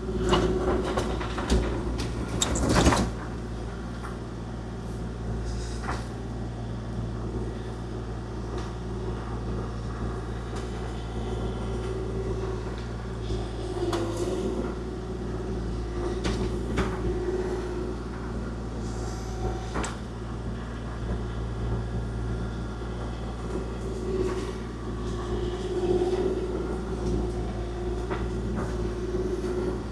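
Machine engine running steadily while plowing snow, with occasional clanks and knocks, a cluster of them in the first few seconds.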